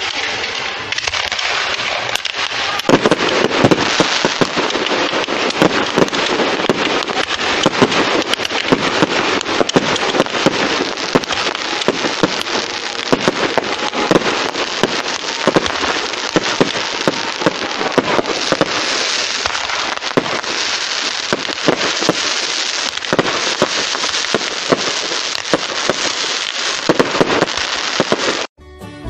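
Fireworks going off in quick succession: a continuous crackle packed with sharp cracks and bangs, cutting off suddenly near the end.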